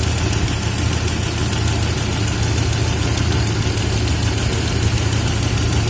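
AMC 242 engine idling steadily with a rapid, regular knock over the running sound: the knock that the engine is being run to show.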